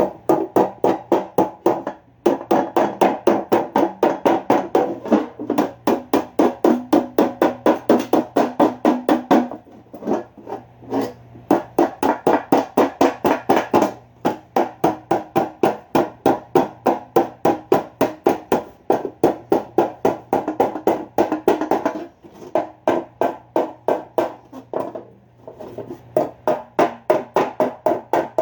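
A metal pan being hammered with rapid, even blows, about four a second, each ringing briefly, in runs with a few short pauses: the pan's dents being beaten out.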